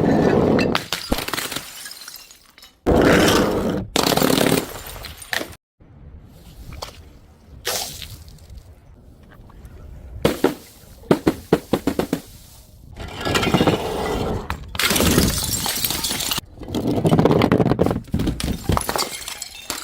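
Glass bottles and jars breaking one after another: a series of loud crashes and crunches, with a run of quick crackling shatters partway through.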